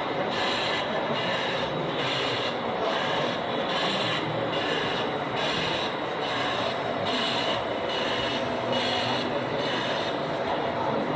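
Gauge 1 KM1 model steam locomotive running slowly, its sound system giving an even rhythm of steam chuffs, a little under two a second.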